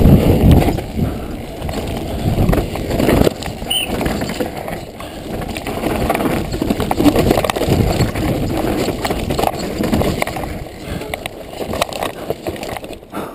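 Downhill mountain bike riding fast down a dirt trail: wind buffeting the camera's microphone, tyre noise on the dirt and the rattle of the bike over bumps. It quietens near the end as the bike slows.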